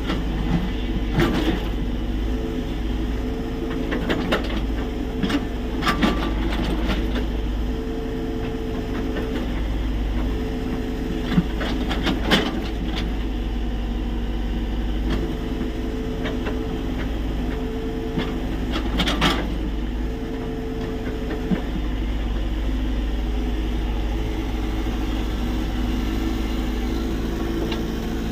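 Tata Hitachi EX70 excavator's diesel engine running steadily while digging, with a few sharp knocks scattered through, about a second in, around 4 and 6 seconds, near the middle, and again about two-thirds of the way through.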